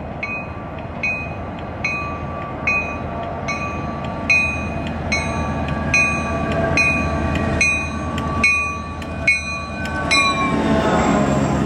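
A bell rings steadily, one strike about every 0.8 seconds, as a commuter train led by an EMD F40PH-2C diesel locomotive approaches. About ten and a half seconds in, the locomotive passes close by and its engine noise and whine swell up loudly.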